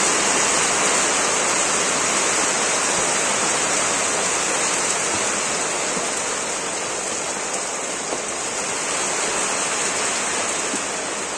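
Rain falling steadily, a constant hiss that does not let up.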